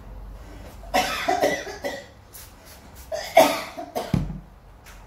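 A person coughing in two bouts, the first about a second in and a louder one past the middle, with a few short sharp clicks between them.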